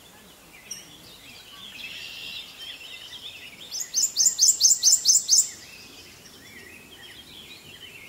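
A prothonotary warbler singing its song: a run of about eight loud, quick, identical high notes, each sliding down in pitch, lasting about a second and a half midway through. Fainter chattering birdsong can be heard before and after.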